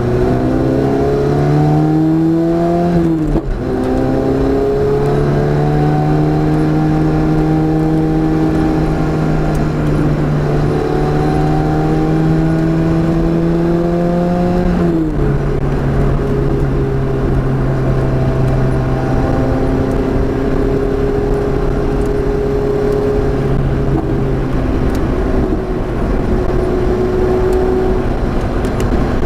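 Car engine accelerating on a race track, its pitch climbing under throttle and dropping sharply twice at gear changes, about three seconds in and about halfway through, then running fairly steady, over constant road and wind noise.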